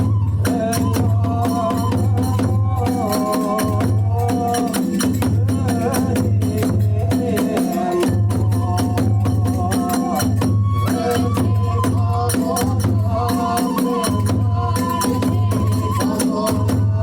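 Kagura hayashi ensemble playing: a deep drum pulsing beneath fast clashing hand cymbals, with a bamboo flute carrying a wavering melody over them.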